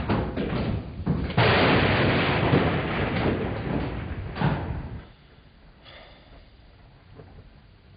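A sudden loud clap of thunder about a second and a half in, rumbling on and dying away over some three seconds.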